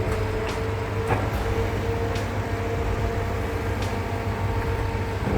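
Heavy machine's diesel engine running steadily with a constant hum, with a few sharp knocks of wood or metal over it.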